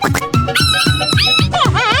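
Background music with a fast steady beat and sliding, wavering electronic tones.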